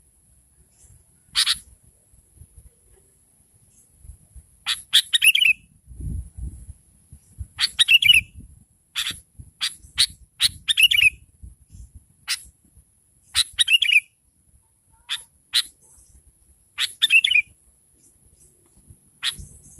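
Sooty-headed bulbul (kutilang) calling: short, quick chattering phrases repeated about every one to two seconds, many ending in a falling note, the female calling that is played to lure males.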